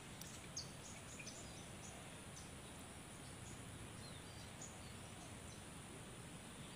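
Faint rural outdoor ambience: a steady soft hiss with scattered short, high chirps and a small tick about half a second in.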